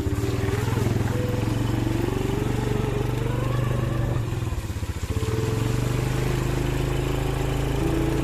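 A vehicle engine running steadily, its pitch wandering up and down, with a brief drop in level about five seconds in.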